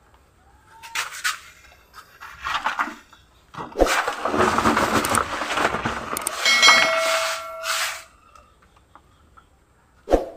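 Close rustling and scraping from a person moving right against the microphone, loudest in a long stretch in the middle. A short steady tone sounds over the end of that stretch, and a single sharp click comes near the end.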